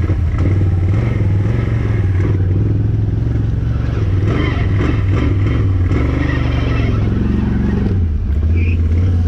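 Side-by-side UTV engine running steadily at low revs, its low note shifting only slightly.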